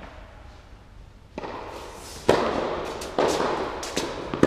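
Tennis ball struck back and forth by rackets in an indoor hall: a series of sharp hits and bounces about a second apart, starting about a second and a half in, the loudest a little after two seconds. Each rings on in the hall's echo.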